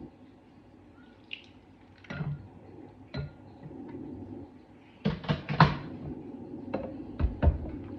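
Kitchen clatter: dishes and utensils knocking and clinking in a few separate knocks, with a quick cluster of clanks about five seconds in and two more near the end.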